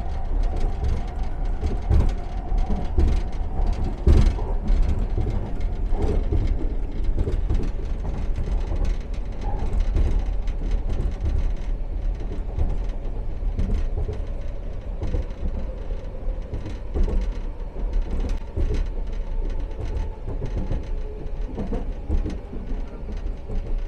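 Metro Vancouver Expo Line SkyTrain train running along the track: a steady low rumble with frequent irregular clicks and knocks and a faint steady hum.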